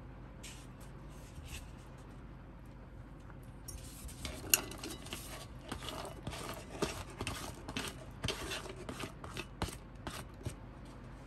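Small hard objects being handled: a few faint clicks, then a quick run of clicks, taps and scrapes, with one sharper clack just after it picks up.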